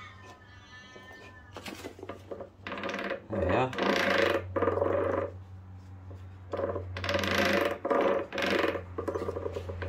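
Steel gear parts clinking and scraping as they are worked by hand on the mainshaft of a Nissan Patrol manual gearbox, in two bouts of rattling, over a steady low hum.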